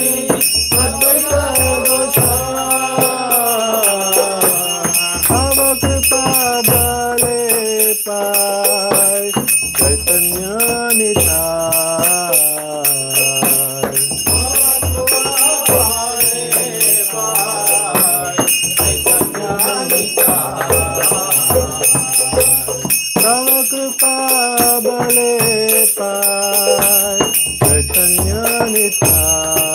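A hand bell rung fast and continuously during worship at a home altar, over devotional music with a sung or played melody.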